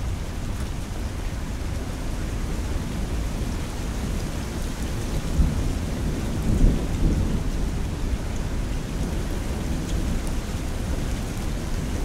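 Steady rain falling during a thunderstorm. A low roll of thunder swells up about halfway through and fades over a couple of seconds.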